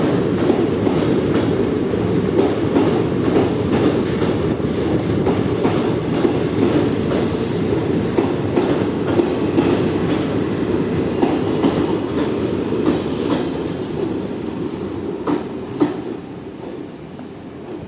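Coaches of the Aranyak Superfast Express rolling past on the track as it arrives: a steady rumble of wheels with repeated clacks over the rail joints. The sound fades over the last few seconds, and a thin, high, steady squeal comes in near the end.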